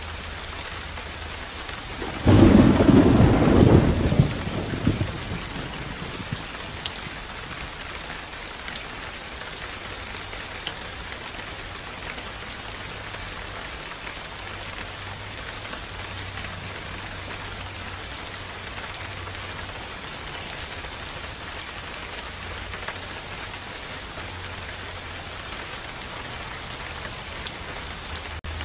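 Steady rain with a single clap of thunder about two seconds in that rumbles away over the next few seconds.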